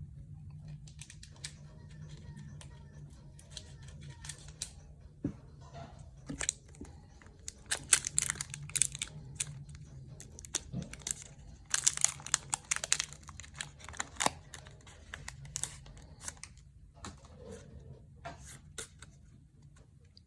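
A Pokémon card booster pack's foil wrapper being crinkled and torn open by hand: bursts of crackling and ripping, loudest about eight and twelve seconds in, over a faint steady low hum.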